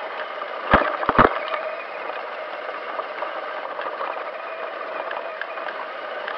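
Radio-controlled car heard from its own onboard camera while driving over sand: a steady whir of motor and gears with chassis rattle, and a few sharp knocks about a second in.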